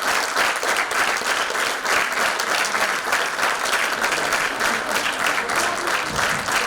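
Large theatre audience applauding steadily, dense and sustained clapping with no break.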